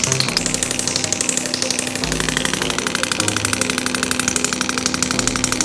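Radial shock wave therapy device firing into the body, a rapid, even clicking of well over ten pulses a second, kept up without a break.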